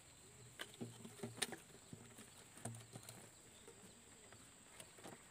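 Faint scattered knocks and taps from a net-covered box fish trap's frame being lifted and shifted on a dirt road, most of them in the first three seconds, the sharpest about one and a half seconds in.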